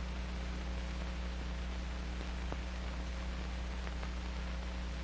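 Steady hiss and low electrical hum of an old film soundtrack's background noise, with a couple of faint clicks.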